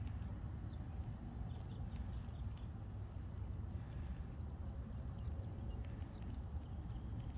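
Wind buffeting the microphone as a low, uneven rumble, with faint, scattered high bird chirps.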